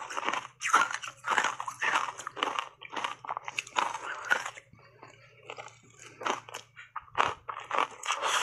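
Matcha-powder-coated ice chunks bitten and chewed close to a clip-on microphone: loud crunching about twice a second, fainter for a couple of seconds past the middle, then loud again near the end.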